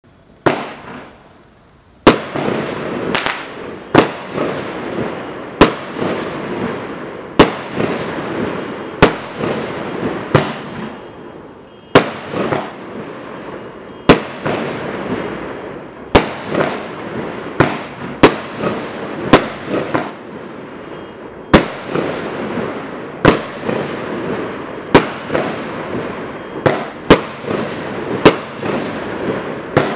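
A 25-shot, 1-inch consumer firework cake firing shot after shot. Each shot is a sharp bang, about one a second, with a steady hiss between them. The first shot is softer than the rest.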